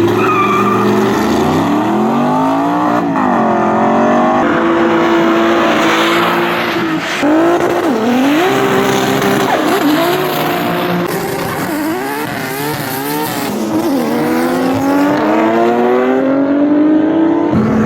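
Drag race car's engine revved up and down again and again at the start line, with quick blips in the middle and a long rising rev near the end, over a haze of tyre squeal as in a burnout.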